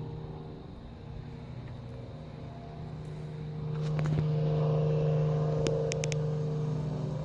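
Motor vehicle engine humming steadily at a constant pitch. It grows louder about four seconds in, then eases off.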